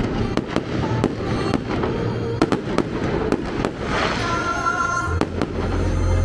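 Fireworks going off in a quick, irregular string of bangs and crackles, with music playing underneath and a deep bass coming in near the end.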